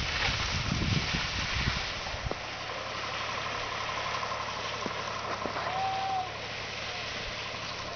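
Wind buffeting the camera microphone in gusts for the first two seconds, then a steady outdoor hiss with a faint distant machine hum. A short tone sounds once about six seconds in.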